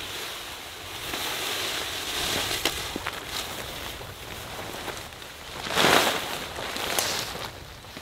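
Fabric hammock tarp rustling and flapping as it is handled and shaken out, with a loud rush about six seconds in, over wind blowing.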